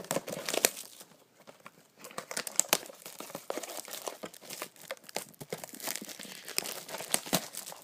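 Plastic shrink-wrap and cardboard crinkling and tearing in irregular crackles as a sealed trading-card blaster box is opened by hand.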